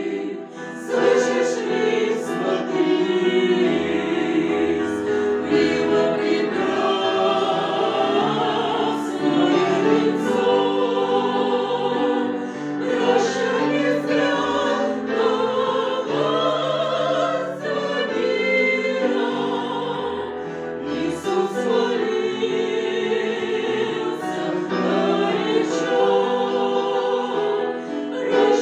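A choir singing a song in several voices at once, with a brief break between phrases just after the start.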